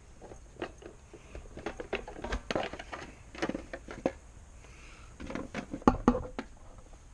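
Irregular clicks and light knocks from hands working the controls and parts of an old motorcycle, with a louder couple of knocks about six seconds in.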